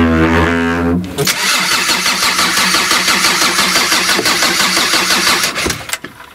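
Diesel engine being started on its starter after the glow plugs have been heated. An even tone for about the first second gives way to a steady rapid clatter, which stops near the end.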